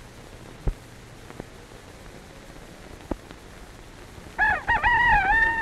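A rooster crowing once, one long crow beginning about four and a half seconds in: the Pathé rooster trademark's crow. Before it there is only the hiss of an early optical film soundtrack, with two sharp clicks.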